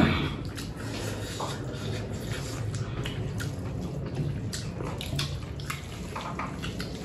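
People eating a meal of rice and dal close to the microphone: wet chewing and mouth sounds with many small scattered clicks, over a low steady hum.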